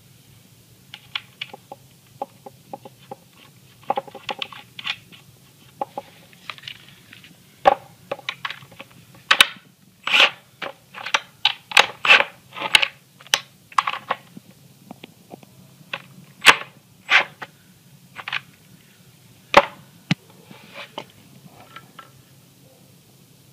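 Irregular metal clicks and clanks of a nut being fitted and tightened on a caster wheel's mounting bolt, coming in quick runs, loudest and densest midway through.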